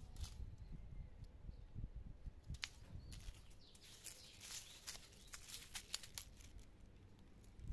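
Faint rustling of leafy plant stems being brushed and pushed aside, with scattered light clicks and crackles and a low handling rumble.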